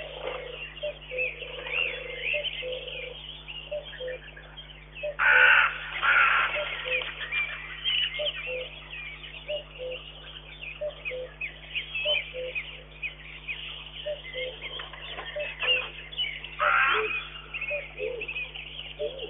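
Forest birds singing in a dawn chorus, with a low note repeating about every half second. A loud harsh crow-like caw sounds twice, about five seconds in and again near the end.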